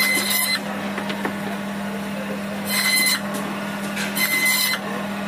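Electric band saw running with a steady hum, its blade cutting through pieces of rohu fish. Three cuts, at the start, about halfway through and near the end, each a brief loud hiss and whine of about half a second.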